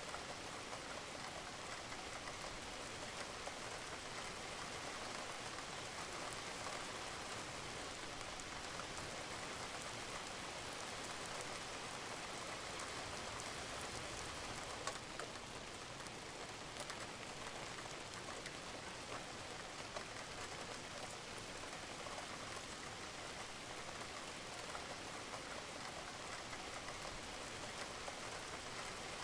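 Steady rain falling on a roof, a dense even patter with scattered sharper drop ticks.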